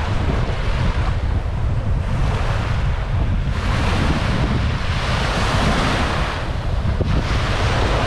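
Small waves breaking and washing up a sandy shore, one swelling about halfway through and another near the end, over a steady rumble of wind on the microphone.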